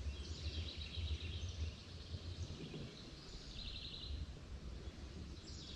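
Songbirds chirping and trilling on and off, with one quick run of repeated notes about halfway through, over a low uneven rumble.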